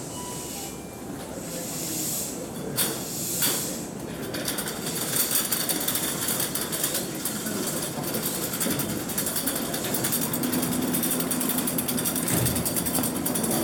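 Toei 6300-series subway train standing at the platform with its doors open. Two brief hisses come about three seconds in. From about four seconds in, a rapid, steady mechanical rattle sets in, the train's air compressor running.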